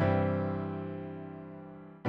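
A piano chord struck once and left to ring, fading away over about two seconds.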